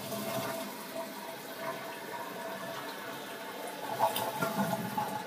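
Water running and filling steadily, with a faint steady tone under the rush.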